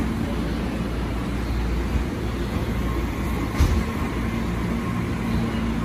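Tobu 60000 series electric commuter train rolling past at low speed, its wheels and running gear making a steady rumble on the track. A single sharp knock is heard a little past halfway through.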